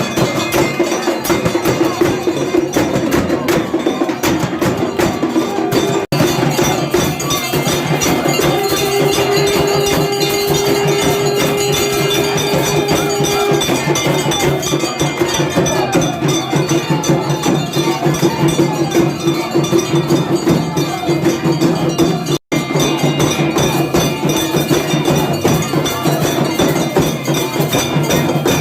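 Temple bells clanging rapidly and continuously with other percussion during a Hindu aarti. A steady held tone sounds for about five seconds near the middle, and the sound cuts out for an instant twice.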